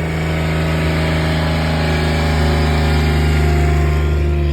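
Engine running steadily at a constant speed, its pitch holding level and the sound getting a little louder near the end.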